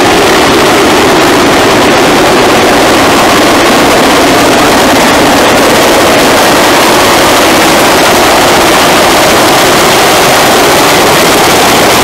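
Large helicopter descending to land close by, its rotors and turbines making a loud, steady, unbroken noise.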